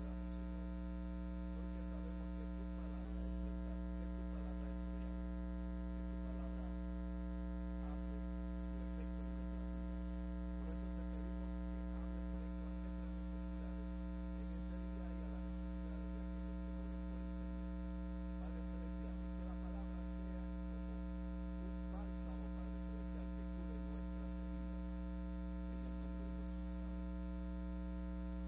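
Steady electrical mains hum in the sound system's audio feed: a low, unchanging hum with a stack of higher buzzing overtones above it.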